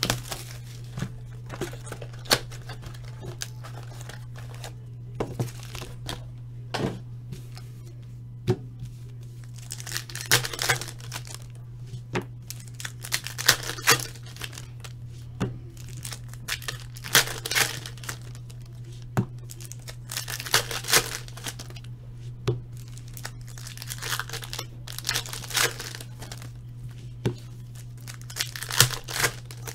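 Packaging of Topps Gold Label baseball cards being torn open and crinkled by hand: the box wrap and plastic pack wrappers, with cards handled between. The bursts of crinkling and tearing are short and irregular, with small clicks between them, over a steady low hum.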